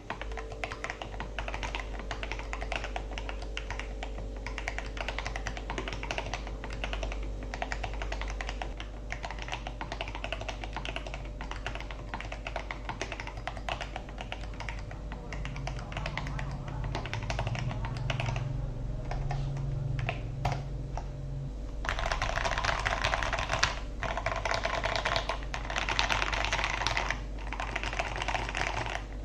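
Typing on a mechanical keyboard fitted with stock, unlubed Akko CS Jelly Black linear switches and Cherry-profile keycaps: a steady run of keystrokes, crisp and compact. About 22 seconds in the typing becomes louder and brighter.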